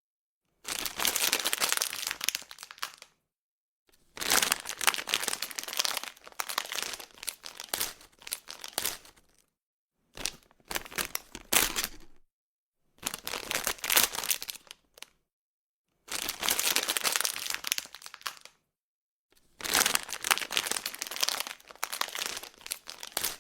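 A plastic bag being crumpled and crinkled in the hands, in six separate takes of about two to three seconds each, with sharp crackles throughout.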